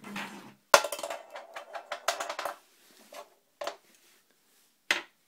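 Hard plastic and metal parts of a DSLR camera body and zoom lens being handled for mounting: a quick clatter of clicks and knocks lasting about two seconds, then a few single clicks.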